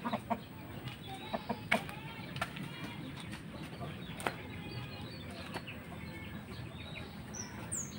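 Quiet yard background with a few scattered sharp clicks and faint, high, short chirping calls; no loud rooster call.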